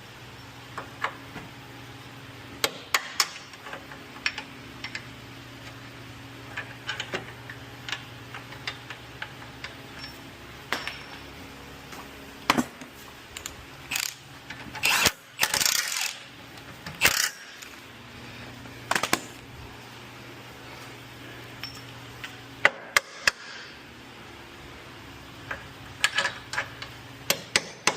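Scattered metal clinks and clicks of hand tools and bolts being handled during suspension work, with a denser clatter about halfway through, over a steady low hum.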